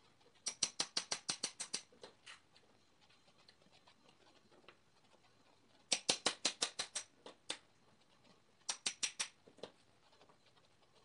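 Runs of quick, light metallic taps from a hand hammer striking metal on a wooden board, about eight a second, each with a short ringing edge. There are three runs: one starting about half a second in, one about six seconds in, and a shorter one near nine seconds, with a few single taps between them.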